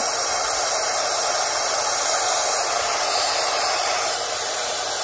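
Compact Babelio white noise machine playing its white noise setting: a steady, even hiss with no breaks.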